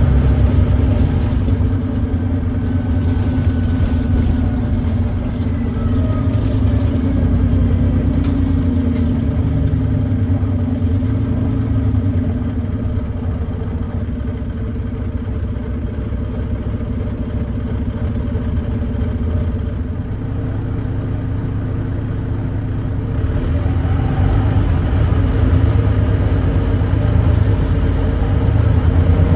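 Volvo D9B 9.3-litre diesel engine of a Volvo B9TL double-decker bus running steadily, with the thrash of an exhaust leak. It eases off and quietens through the middle, then picks up again about two-thirds of the way through.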